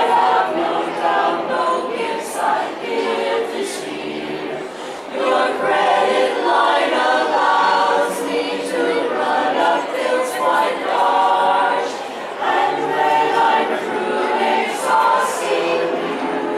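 A women's barbershop chorus singing a cappella in close harmony, in sung phrases with short breaks between them.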